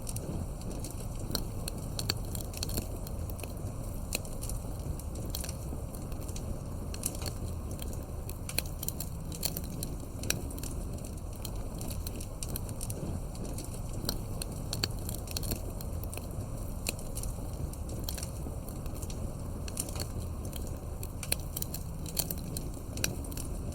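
Wood fire in a fireplace crackling, with many sharp pops and snaps scattered irregularly over a steady low rumble of the flames.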